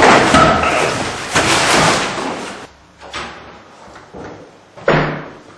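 Loud rustling and scuffling of a struggle for about two and a half seconds, then a door slammed shut once near the end.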